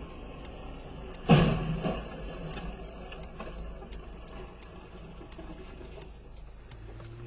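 A single heavy bang about a second in that dies away over about a second, over a steady low rumble of vehicle noise.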